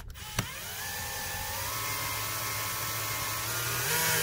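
Cordless drill/driver driving a small screw into the boat's floor: a click about half a second in, then the motor's steady whine, its pitch climbing slightly over the first second or so.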